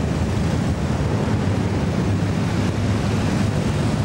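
A large group of cruiser motorcycles riding past, their engines making a steady low rumble, mixed with wind buffeting the microphone.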